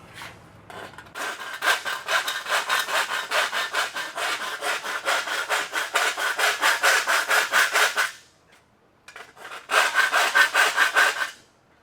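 Hand file rasping back and forth in a slot in a Model A Ford's sheet-metal trunk lid, in quick strokes about four a second with a steady metallic ring under them. It stops about eight seconds in, then resumes for a short run near the end.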